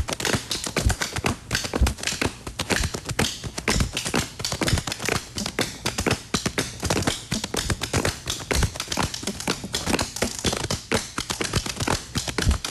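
Body percussion: hands slapping and patting the performer's own body, a fast, continuous rhythm of sharp slaps with deeper thumps among them.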